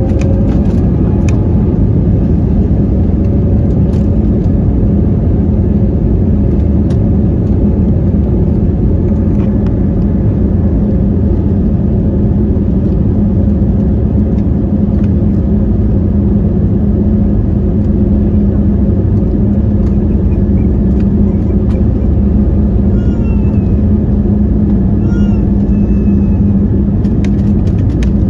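Inside a jet airliner's cabin during the takeoff roll: the engines at takeoff thrust give a loud, steady rumble with a steady hum, along with the rumble of the wheels on the runway. A few brief high chirps come through near the end.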